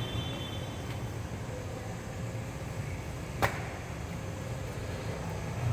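A steady low mechanical hum, with one sharp click about three and a half seconds in.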